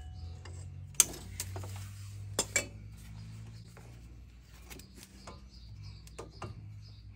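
Chevy Sonic front brake caliper handled by hand, its metal parts clinking lightly: a sharp clink about a second in, two more close together about two and a half seconds in, then softer taps, over a steady low hum.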